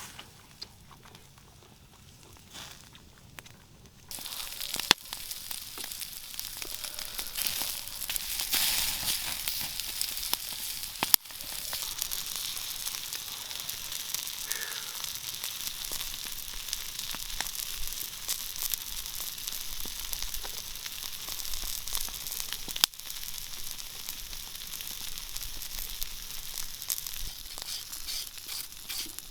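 Meat frying and sizzling. The sizzle starts suddenly about four seconds in and then runs as a dense, steady hiss, broken by a few sharp clicks.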